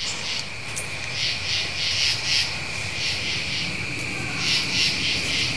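Night insects chirping in a pulsing chorus, the pulses coming about three a second.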